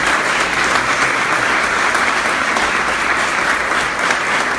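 Audience applauding steadily: a dense, even clatter of many hands clapping at the close of a speech.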